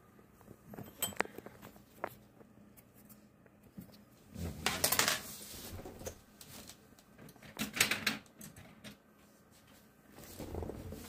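Hard plastic frame parts clicking and knocking as the frame is handled and flipped up on its hinges, with two louder clattering bursts about five and eight seconds in.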